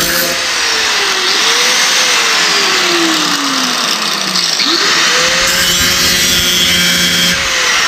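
Electric angle grinder grinding the sheet-steel edge of a truck door. The motor's whine slowly drops in pitch as it bogs under the load, climbs back quickly about five seconds in, then drops again near the end.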